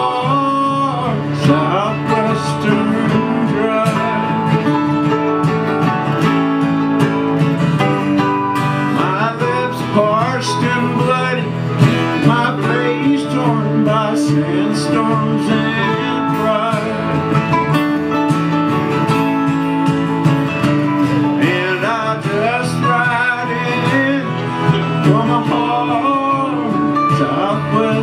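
Live acoustic country-folk music: two acoustic guitars and a mandolin playing together, steady and unbroken.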